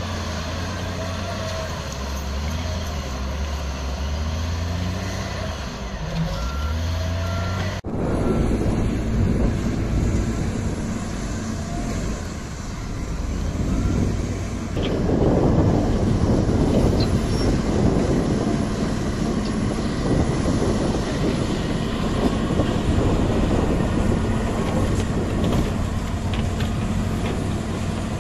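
Heavy diesel machinery working, its engines running with the pitch stepping up and down. The sound changes abruptly about eight seconds in to a denser rumbling of engines and work noise.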